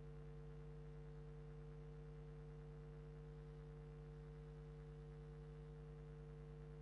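Near silence with a faint, steady low hum made of several held tones.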